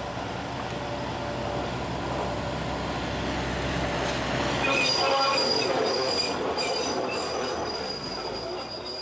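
Hi-Mo 180 diesel railbus pulling out and running close past: engine rumble and rolling noise. About halfway through a steady high-pitched squeal sets in, and the sound fades as the railbus moves away.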